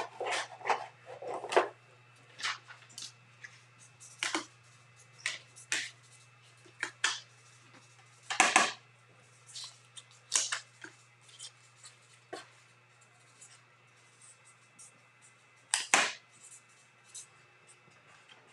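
Trading cards in plastic holders being handled and set down on a wooden table: irregular clicks, taps and rustles, with two louder clacks, one about eight seconds in and one near the end, over a steady low hum.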